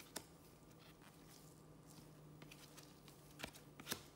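Near silence with a faint steady hum, broken by a few soft ticks of trading cards being handled by gloved hands, two of them close together near the end.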